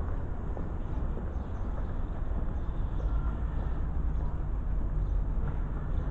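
Steady outdoor background rumble, low and even, with no distinct bird calls standing out.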